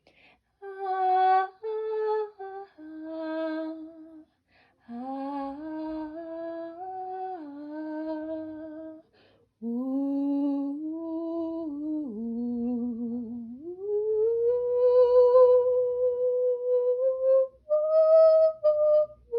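A girl's voice singing a slow wordless melody, humming and held 'ah' notes, one note at a time with short breaks, ending on a long held note and then a higher one near the end.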